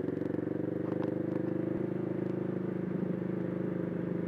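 650R motorcycle engine running at steady revs, an even pitched drone with a fine regular pulse.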